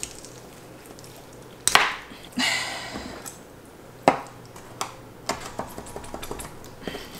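Chef's knife being forced through the bones and joints of a raw rabbit on a granite countertop. Two sharp knocks of the blade come about two seconds apart, then a run of lighter clicks. The knife is one the cook finds too dull for the bone.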